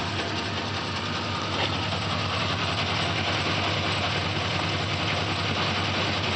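2004 Chevrolet Silverado's 6.0-litre V8 idling steadily, with a ticking noise at idle running through the engine sound.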